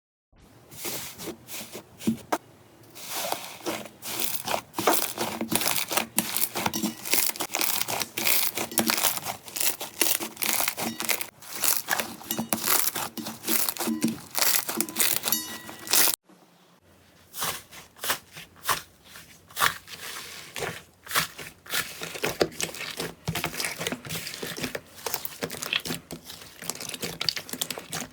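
Slime being squeezed and pressed by hand, giving dense, irregular crackling and popping. The sound breaks off briefly about halfway through, then goes on.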